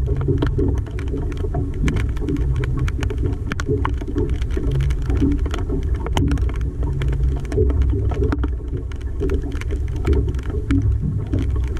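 Heavy rain: many sharp, close raindrop hits scattered over a steady low rumble of wind on the microphone.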